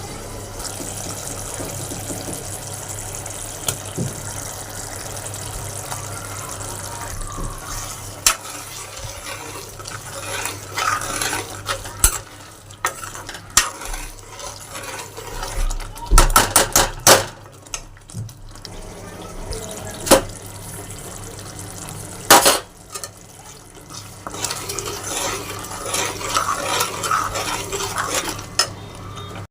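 Kitchen cooking sounds: metal utensils and cookware knocking and clattering against pots and pans, with a quick run of sharp knocks about halfway through, over a steady low hum.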